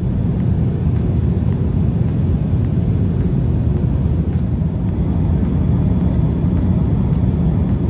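Steady low rumble of an Airbus A350-1000 in cruise, heard inside the passenger cabin: engine and airflow noise.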